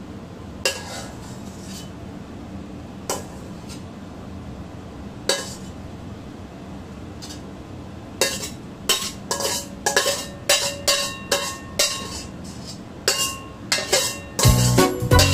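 Metal spatula clinking and scraping against a wok as stir-fry is pushed out onto a plate: a few separate clinks, then a quick run of clinks from about halfway. Music comes in just before the end.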